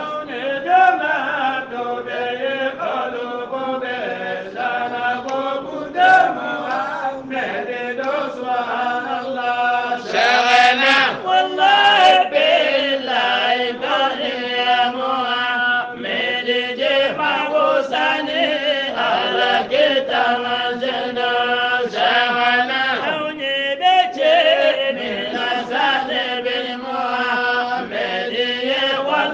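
A voice chanting a kassida (qasida), an Islamic devotional poem, in a long, unbroken melodic line.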